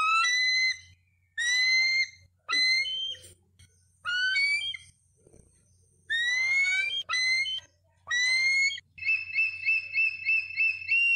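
Bald eagle calling: a string of short, high, rising whistled calls, then near the end a fast chattering run of about eight quick chirps.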